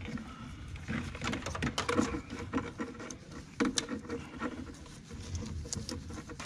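Rubber air-intake duct and its plastic fittings being pushed and bent aside by gloved hands in a car engine bay: scattered clicks and knocks with light rustling.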